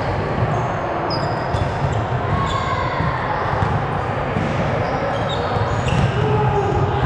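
Indoor volleyball game in a gymnasium: volleyballs being hit and hitting the floor, with short sneaker squeaks on the court, over a steady echoing hall din.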